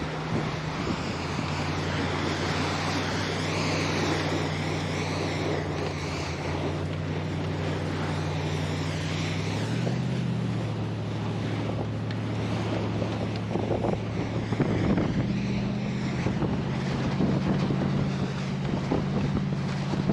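Vehicle engine running steadily, its pitch stepping up about halfway through, with wind noise on the microphone.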